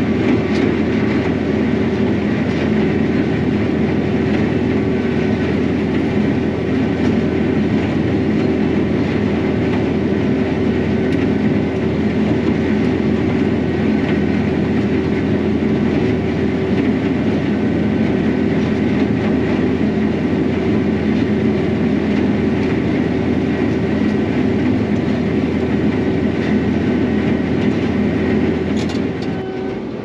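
John Deere self-propelled swather running steadily, its diesel engine giving a constant hum with a light irregular clatter from the machine.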